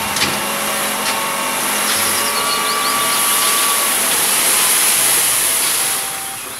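Light dump truck's engine running hard while its hydraulic hoist raises the tipper bed, with a steady rushing hiss of sand pouring out the back; the sound eases near the end.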